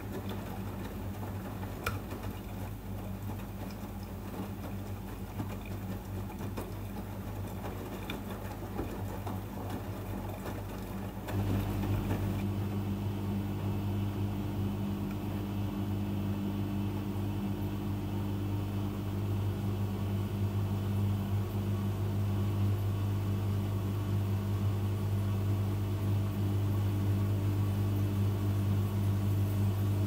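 AEG Lavamat 76850 front-loading washing machine working through a rinse, with a steady low motor hum under water noise as the drum turns. About eleven seconds in the motor steps up into the spin after the rinse, and the hum grows slowly louder as the drum picks up speed.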